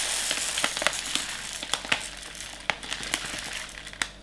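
Dry rice pouring from a crinkling plastic bag into a plastic measuring jug, a hiss of running grains with scattered crackles and clicks from the bag. The pouring hiss slowly tapers off as the stream dwindles.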